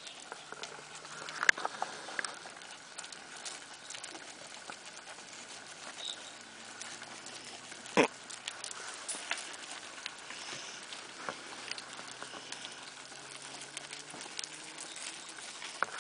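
Pattering and scuffing of small paws on stony dirt as corgi puppies scramble around and after their mother, with scattered clicks and one sharp knock about halfway through.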